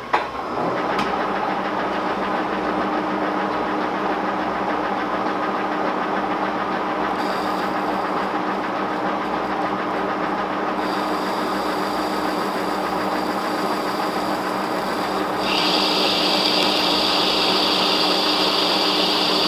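Monarch 18CY engine lathe engaged with a click and spinning up to about 420 RPM, then running steadily with its gears whining. From about seven seconds in, a CNMG carbide insert cutting an undercut into a 400-series stainless steel bar adds a hiss, which grows louder about fifteen seconds in.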